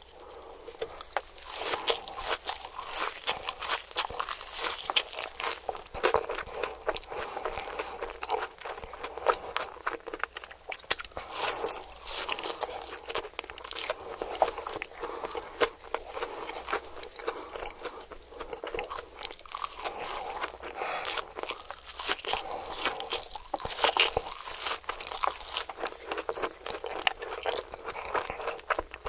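A person biting and chewing crunchy fried food, with a dense run of irregular crunches throughout.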